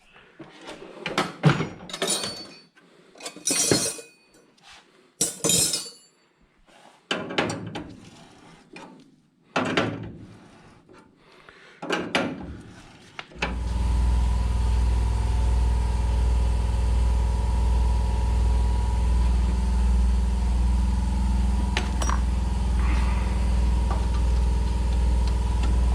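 Irregular clanking, knocking and scraping of metal tools on car-body sheet metal. About halfway through, a motor starts and runs with a steady low hum.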